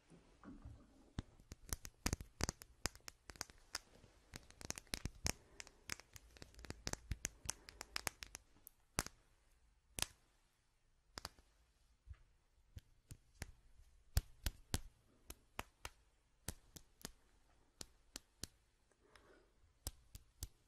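Close-miked ASMR handling sounds: irregular sharp crackles and clicks, dense through the first half and sparser later.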